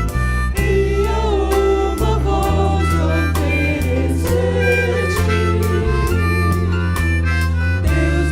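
Gospel worship music with a steady drum beat, a bass line and a wavering lead melody.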